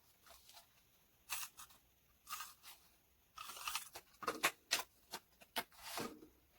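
Paper being handled: a string of short rustling, tearing crackles, coming thicker and faster in the second half.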